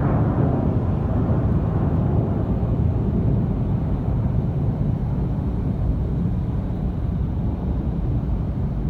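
Jet airliner's engines rumbling as it climbs away after takeoff, a deep steady roar that grows duller and slightly quieter as the plane recedes.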